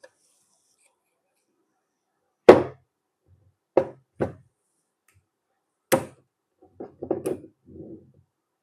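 A series of sharp knocks and clunks of hard objects on a hard surface. The loudest comes about two and a half seconds in, two more follow close together near four seconds and another near six, then a quick run of lighter knocks and rattles.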